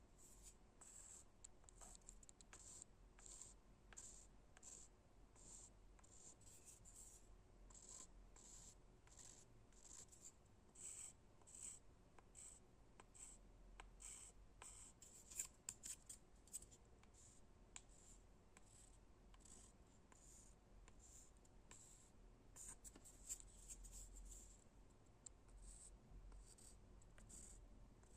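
Quiet scratching on a wooden surface: short strokes, about one or two a second, with quicker runs now and then.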